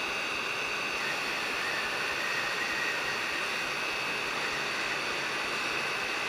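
Hot air rework station blowing steadily onto a surface-mount chip being reflowed onto a circuit board: an even hiss of air with a thin high whine on top.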